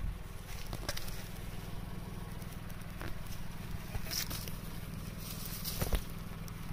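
Footsteps and rustling in grass, with scattered short clicks, over a steady low hum.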